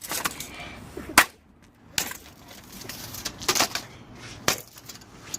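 A laptop screen being bashed: a series of about six sharp knocks at uneven intervals.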